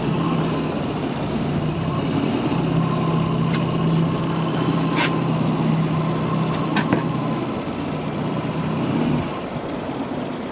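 Boat motor on a 21-foot Thunder Jet river sled running steadily at low speed with an even hum; the hum drops away about nine seconds in. Three sharp clicks sound over it in the middle.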